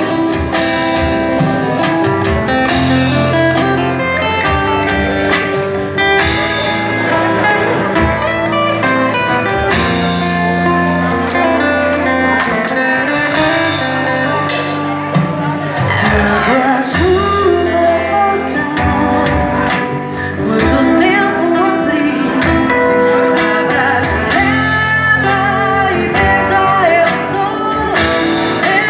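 Live band music: two nylon-string acoustic guitars played with drums and cymbals, and a woman singing into a microphone from about halfway through.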